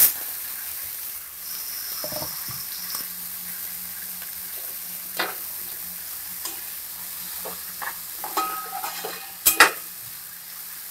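Chopped tomatoes and onions sizzling in hot oil in a metal pan while a spatula stirs and scrapes them, with scattered clinks. Near the end come two sharp knocks, the loudest sounds.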